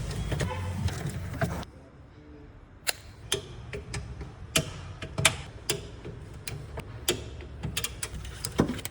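Irregular sharp clicks and light knocks of tools handling metal and plastic parts, spaced unevenly about one or two a second. They follow a louder stretch that cuts off suddenly about a second and a half in.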